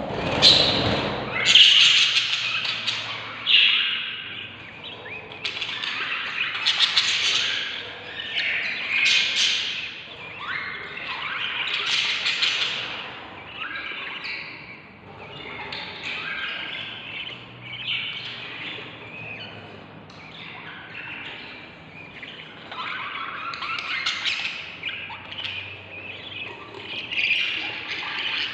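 Budgerigar chicks calling inside a nest box: raspy, hoarse chirps repeated in bursts every second or two, the hungry begging calls of nestlings. A thump comes right at the start.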